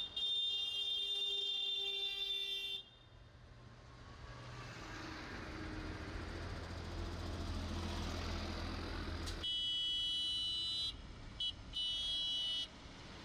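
A convoy of tractors passing, with horns honking. A long, high-pitched horn blast ends abruptly about three seconds in. A tractor's diesel engine drone then grows steadily louder with tyre and road noise as it approaches. Another horn sounds from about two-thirds of the way through, cut twice by short breaks near the end.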